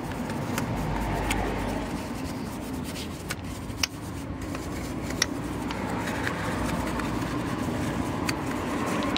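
A wheel brush scrubbing the foam-covered spokes of a Porsche alloy wheel coated in wheel cleaner, with a few sharp taps of the brush against the wheel, over a steady low rumble.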